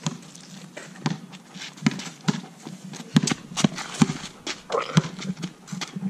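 Basketball dribbled on an asphalt driveway: a run of irregular bounces, roughly two a second, each a short sharp thud, with sneaker scuffs between them.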